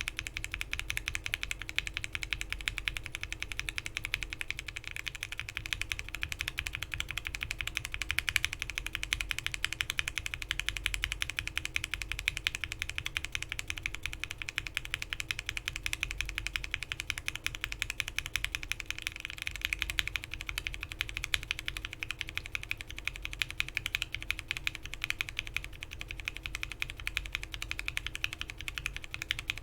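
Fast, continuous typing on a mechanical keyboard with lubed Gateron Milky Yellow linear frankenswitches on 67 g long springs, in a foamed case with an FR4 plate and PBT keycaps. The switches carry a Gateron Ink stem at first, a Cherry MX stem from about five seconds in, and an Alpaca stem from about nineteen seconds in, with a steady clack and thock of keystrokes throughout.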